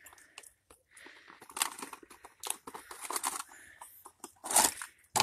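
Packaging crinkling and tearing in irregular bursts as a gift is handled, with a sharp click near the end.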